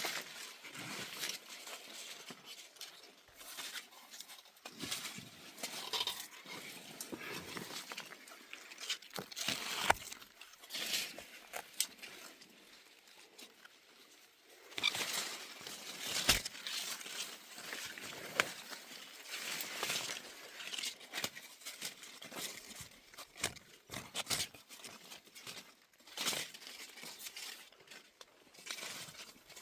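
Irregular rustling and crackling, with many sharp snaps and clicks scattered throughout, of foliage and fruit being handled during picking.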